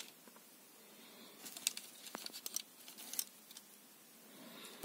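Small, sharp plastic clicks and taps from a hand handling an assembled Bandai Buzz Lightyear plastic model figure at its wings, clustered from about a second and a half to three and a half seconds in.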